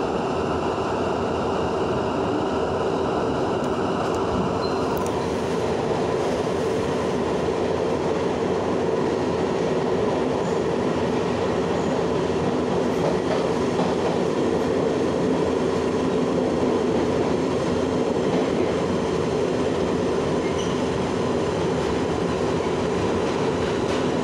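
R62 subway train running through the tunnel, heard from inside the car: a steady rumble of wheels on rail with a held hum underneath, the sound shifting slightly about five seconds in.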